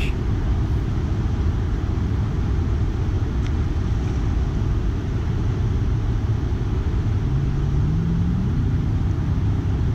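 Steady low rumble of water pouring through a dam's open spillway gates. An engine's hum rises in pitch about seven seconds in, then holds.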